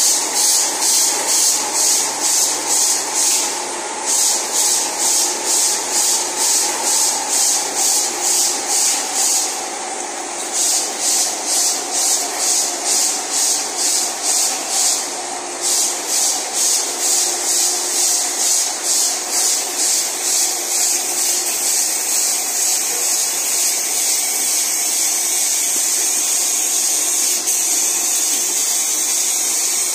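Automatic facial tissue line and case-packing machinery running, with a loud hiss that pulses about two or three times a second and pauses briefly a few times. About two-thirds of the way through, the pulsing gives way to a steady hiss.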